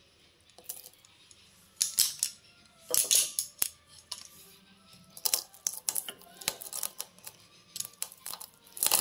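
Roasted black peppercorns and cloves being crushed under a rolling pin on a rolling board: irregular sharp cracks and crunches in short clusters.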